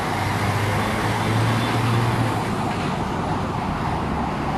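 Road traffic noise, with a vehicle engine's low steady hum through the first two seconds or so.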